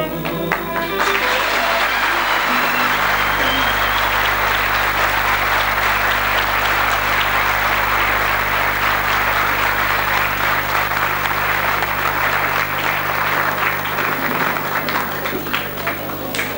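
A large audience applauding. A few scattered claps come first, the full applause sets in about a second in, and it thins out near the end.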